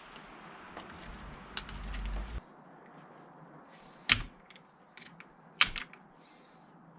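Chainsaw parts being handled and fitted back together during reassembly: rustling handling noise for the first couple of seconds, then a few sharp clicks and knocks of small parts snapping or tapping into place, one about four seconds in and two close together about a second and a half later.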